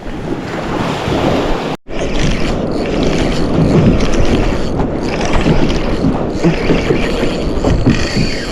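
Wind buffeting the microphone over water sloshing against a kayak, with a brief total cut-out about two seconds in.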